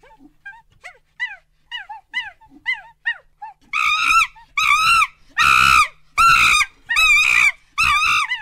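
Macaque calls: a series of short chirping calls, then about six loud, longer arching calls in the second half.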